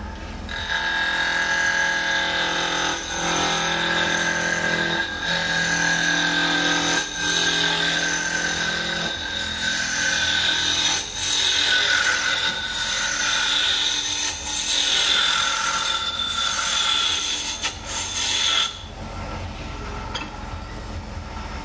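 A hand-held turning tool cutting a spinning wooden blank on a wood lathe: a continuous cutting sound with steady high ringing tones. It stops about 19 seconds in, leaving only the lathe's motor hum.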